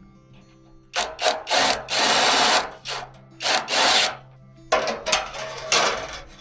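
A tool working in about six bursts of uneven length, the longest about a second, starting about a second in, over quiet background music.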